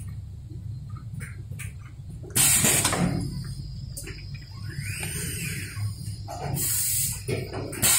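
Small pneumatic bench press hissing as compressed air is let out, in short bursts about two and a half seconds in and again near the end, over a steady low factory hum.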